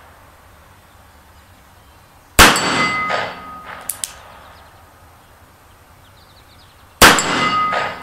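Two shots from a Nagant M1895 revolver firing 7.62×38mmR, about four and a half seconds apart. Each is a sharp crack followed by a short ringing tone.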